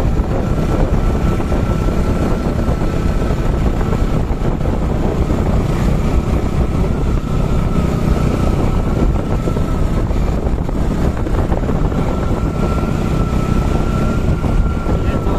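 Motorcycle cruising at a steady pace: the engine runs under heavy wind rush on the microphone, with a thin, steady high whine over it.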